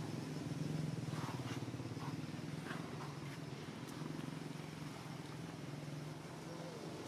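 Low steady hum like an idling engine, with a few faint short high chirps about one to three seconds in.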